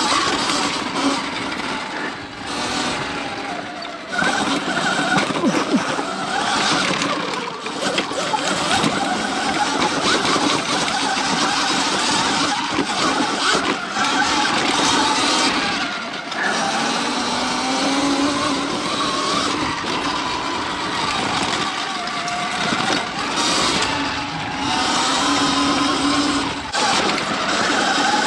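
Sur-Ron X electric dirt bike ridden hard up a steep rocky trail. Its electric motor whines, rising and falling in pitch with throttle and speed, over a steady noise of tyres and chassis rattling on loose rock, with occasional knocks from bumps.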